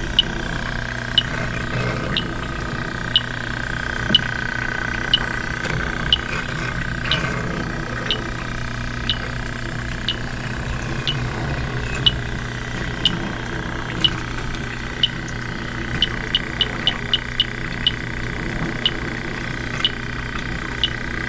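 Electronic refrigerant leak detector ticking about once a second at its slow search rate, quickening briefly to several ticks a second about two-thirds of the way through, while it is swept over an evaporator coil that turns out to have no leak. A steady hum with a high whine runs underneath.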